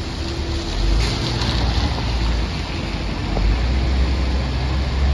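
Rainy city street ambience: a steady low rumble of traffic and engines under a constant hiss of rain and wet road.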